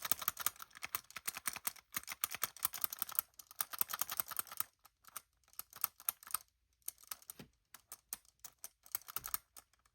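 Hollow plastic clicking and rattling from a Mattel Jurassic World Dunkleosteus toy figure being shaken, its jointed tail knocking back and forth. The clicking is rapid and continuous for about the first four and a half seconds, then comes in shorter bursts with pauses.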